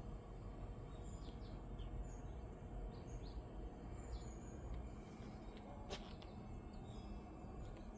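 Steady low outdoor rumble with small birds chirping in short notes several times, and a single sharp click about six seconds in.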